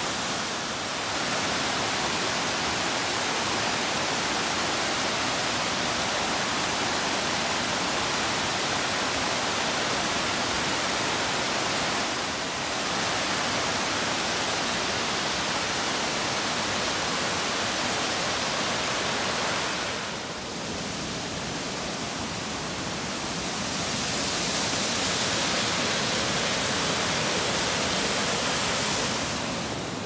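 Water of the Golden Waterfall rushing down a wide series of rock terraces: a steady rushing that dips briefly about a second in, about twelve seconds in and about twenty seconds in.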